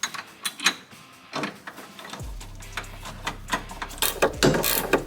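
Sway bar mounting hardware being fitted: sharp metallic clicks and knocks, then from about two seconds in a ratchet running the bracket bolts in with rapid ticking over a low steady hum.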